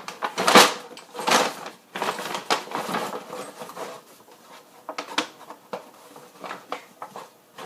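Rustling and crinkling of a bag being rummaged through by hand, in several strong bursts over the first three seconds, followed by a few lighter clicks and taps of a small plastic toy being handled.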